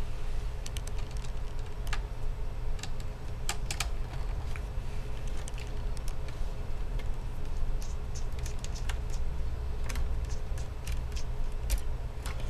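Scattered small clicks and ticks of a Phillips screwdriver turning out the tiny screws that hold a laptop screen's hinge rails, over a steady low hum.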